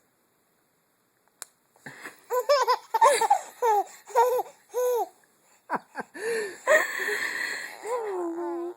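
A baby laughing: a run of short, high-pitched giggles beginning about two seconds in, then a breathier laugh that ends on a drawn-out voiced note.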